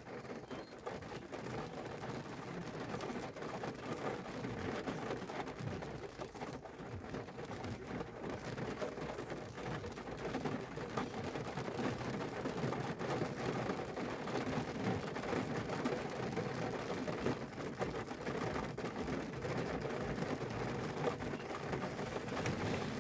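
Steady rain falling on a window, a dense even hiss of many small drop impacts.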